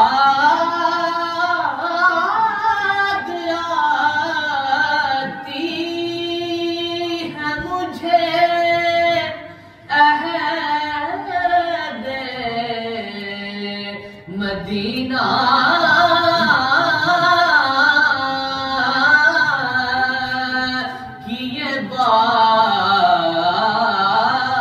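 A man singing a naat, an Urdu devotional poem, in long ornamented phrases that glide up and down in pitch, with short breaks between phrases.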